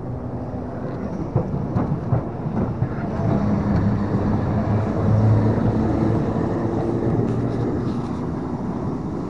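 Double-deck electric tram, London car 331, passing close on street track: a low rumble of wheels on rails and motors, loudest about five seconds in as it goes by, then fading as it moves away. A few sharp knocks in the first two seconds.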